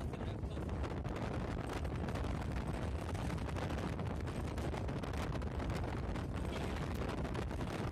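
Wind blasting the phone's microphone from a moving vehicle: a steady heavy rumble with dense crackling, over the vehicle's road noise.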